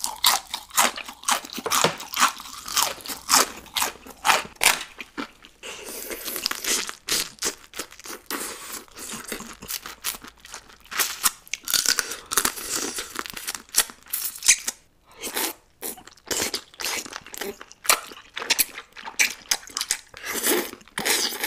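Close-miked eating: crisp, crunchy bites of fried shrimp and crab in shell, with wet chewing, in rapid runs of crunches broken by a few short pauses.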